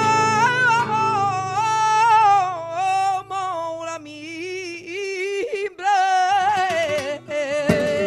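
Flamenco cante in the alegrías style: a singer draws out long melismatic vowel lines that waver and slide up and down in pitch, breaking briefly a couple of times, over acoustic guitar accompaniment.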